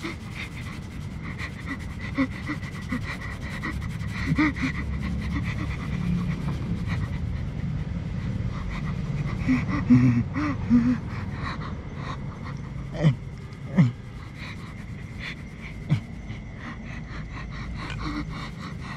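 A man breathing hard and panting, with a few short strained whimpers of pain in the middle and near the end; a faint steady high tone runs underneath.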